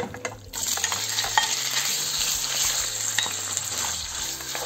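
Diced raw chicken breast dropped into hot oil in a nonstick wok, bursting into a loud sizzle about half a second in that keeps going as it fries. A wooden spatula stirs the pieces, with a few light knocks against the pan.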